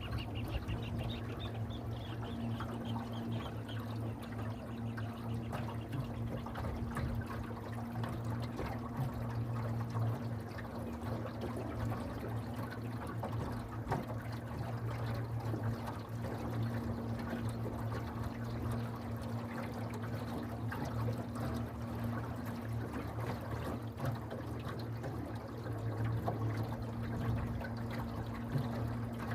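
Water pouring and trickling, with a steady low hum underneath.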